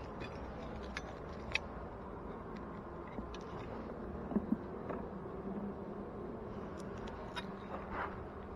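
Honeybee colony buzzing steadily around an opened hive, a continuous drone with a few sharp clicks and taps scattered through it.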